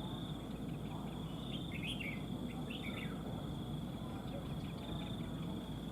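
A few short chirping calls from red-whiskered bulbuls, clustered about two and three seconds in, over a steady high insect drone and a low rumble of background noise.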